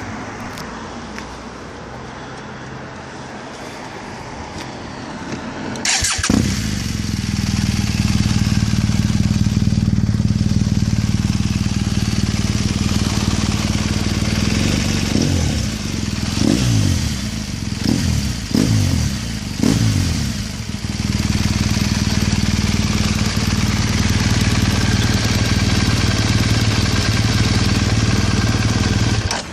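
BMW R1200GS liquid-cooled boxer twin with an Akrapovič exhaust being started with the keyless start about six seconds in, then idling steadily. In the middle it is revved in a quick series of about five throttle blips before settling back to idle.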